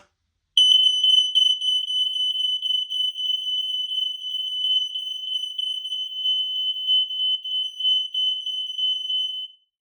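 Smoke alarms sounding on test: one steady, loud, high-pitched tone, starting about half a second in and cutting off suddenly near the end.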